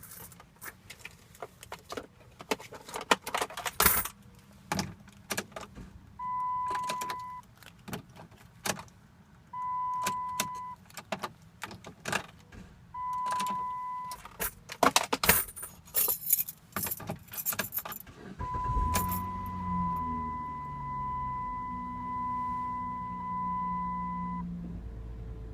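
Ignition keys jangling and clicking as the key is worked repeatedly in a 2009 VW Routan that will not turn over, with three short dashboard warning chimes. About eighteen seconds in, the engine starts and runs while a chime sounds steadily for about six seconds.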